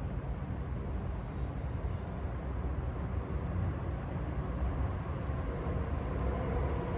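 Steady low rumble of city traffic under a faint even hiss, with an engine tone growing a little louder near the end.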